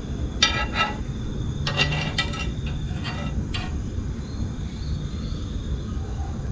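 A spatula scraping and knocking against a cast iron pan as a naan is pushed across it: a few short ringing scrapes in the first four seconds, over a steady low rumble.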